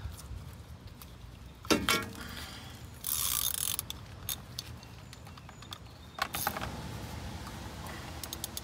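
Socket ratchet clicking as the banjo bolt on a brake caliper is worked loose, with a burst of rapid clicking about three seconds in and a run of quick ticks near the end. Sharp metal clanks come in twice as the caliper and tools are handled.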